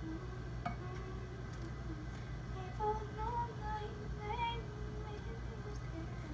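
A girl singing a slow, wavering tune softly to herself, unaccompanied. Her voice is faint at first, with stronger held notes in the middle, over a steady low hum.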